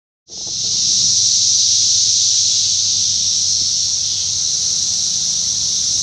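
Chorus of Brood X periodical cicadas: a loud, steady, high-pitched droning hiss that comes in abruptly just after the start and holds unbroken.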